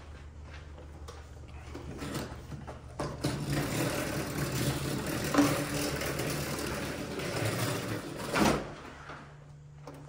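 Commercial upright vacuum cleaner rolled along a hard studded rubber floor, a rough steady rumble from about three seconds in that ends with a short bump near the end. A low steady hum sits under it before and after.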